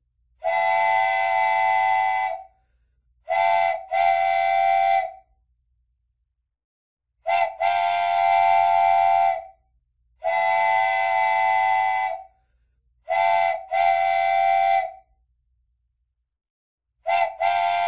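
Wooden toy train whistle blown in a repeating pattern: long blasts of about two seconds, some led by a short toot, in groups of three with pauses of about two seconds between the groups. Each blast holds several steady pitches at once, like a train's chime whistle.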